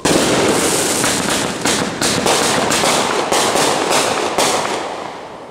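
Aerial fireworks going off: a sudden loud bang, then a dense run of sharp pops and bangs for about four seconds that fades away near the end.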